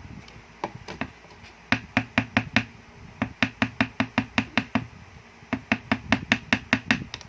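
Quick, even taps of a hard object against a hollow container, in three runs of several strikes each, about six a second, each with a short low ring.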